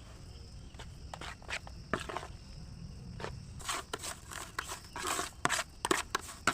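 Footsteps crunching and scuffing on dry ground, irregular, coming thicker in the second half.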